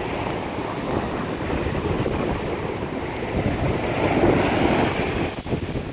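Waves breaking on a sandy beach, with wind buffeting the microphone in a steady rushing noise that swells slightly about four seconds in.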